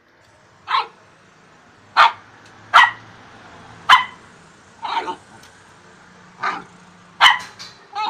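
A dog barking at its own reflection in a mirror, which it takes for another dog: about eight short, sharp barks at uneven intervals, a couple of them in quick pairs.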